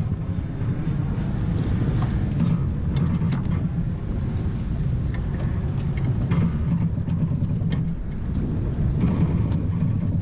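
Wind buffeting the microphone over the wash of the sea past a sailboat's stern, with scattered light knocks and clicks from the Cape Horn servo-pendulum self-steering gear as its pendulum blade is disconnected and lifted out of the water.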